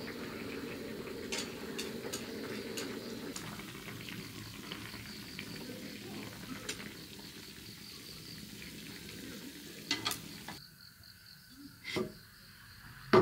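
Oxtail stew simmering in a pan on a portable gas stove, with metal tongs clinking against the pan and a steel bowl as pieces are lifted out. About ten seconds in, the simmer stops abruptly and only a couple of clinks follow.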